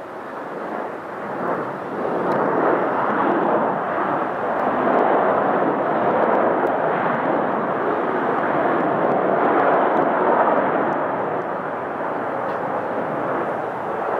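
Boeing 787-8 jet airliner's Rolls-Royce Trent 1000 turbofans at takeoff power, a steady jet roar. It swells about two seconds in as the thrust comes up for the takeoff roll, then holds.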